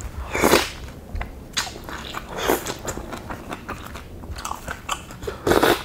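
Close-miked chewing and wet mouth sounds of someone eating bakso, Indonesian beef meatball soup. The sounds come irregularly, with three louder ones: about half a second in, in the middle, and near the end.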